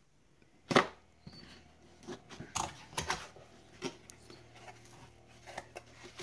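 A corrugated cardboard box being opened by hand: a sharp snap of cardboard about a second in as the tuck flap comes free, then scattered rustles and scrapes as the flaps are folded back and a foam packing sheet is lifted out.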